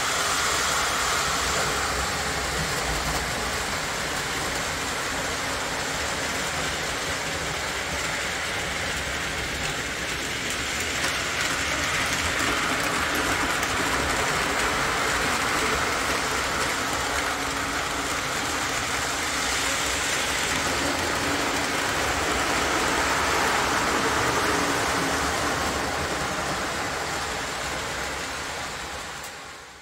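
Model electric train running around the layout track: a steady running noise of wheels and motor that fades out near the end.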